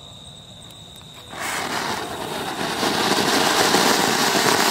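A Vanita flower-pot (anar) fountain firework catches about a second and a half in and sprays sparks with a steady, dense hiss that grows louder a second later.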